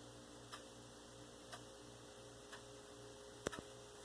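Faint ticks about once a second, with one sharper click about three and a half seconds in, over a low pulsing hum.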